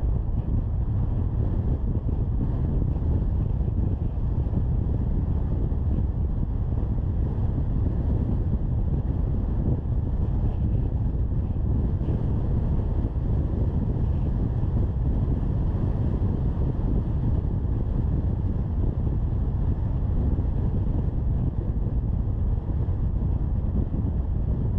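Steady low rumble of a car being driven at moderate speed: tyre and wind noise, with wind buffeting the microphone.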